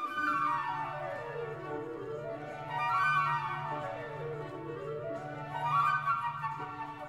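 Background instrumental music: quick runs of notes sweeping down and back up, three times, over a steady held low note.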